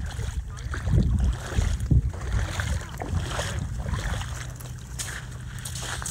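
Wind buffeting the microphone in gusts, with faint crunching of footsteps on a gravel beach. A low steady hum comes in about two-thirds of the way through.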